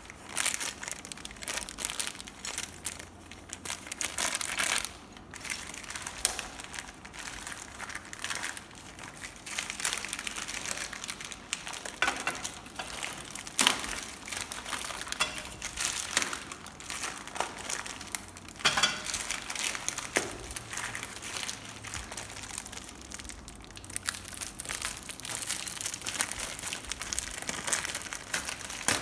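Clear plastic packaging film and small plastic parts bags being handled and crumpled, an irregular crinkling rustle with frequent short, sharp crackles.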